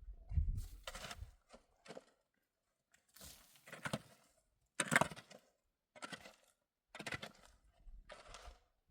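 Snow crunching in a string of short bursts about a second apart, with brief silent gaps between them.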